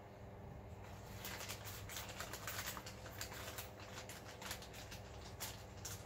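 Hands working at a metal equipment rack, fitting square cage nuts into the rails: faint, irregular small clicks and rustles that start about a second in.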